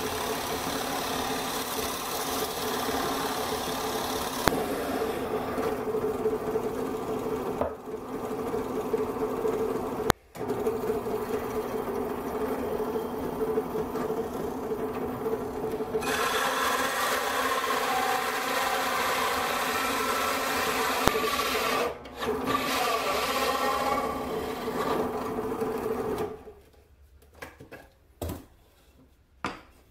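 Drill press motor running with a steady hum while a hole saw cuts through plywood, with a rasping cutting noise. The sound drops out briefly twice, and the motor stops about four seconds before the end, leaving a few light knocks.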